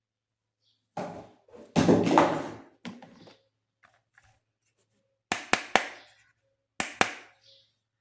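Hands handling plastic toys and packaging: a stretch of rustling and thuds, then a few sharp clicks.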